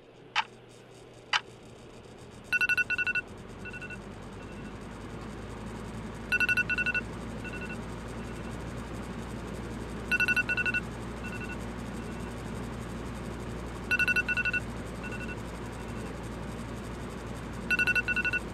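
Electronic alarm beeping in repeating groups, about every four seconds: a quick run of four high beeps, then two fainter ones, over a low steady hum. Two short sharp sounds come just before the first group.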